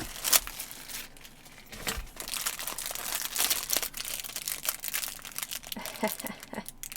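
Plastic packaging crinkling and rustling as merch items are handled and unwrapped, with a few sharp clicks at the start. The crinkling builds to a dense, continuous crackle about two seconds in.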